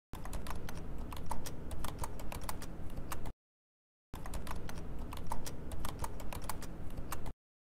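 Computer keyboard typing: rapid, irregular key clicks in two runs of about three seconds each, separated by a short silence and cutting off abruptly.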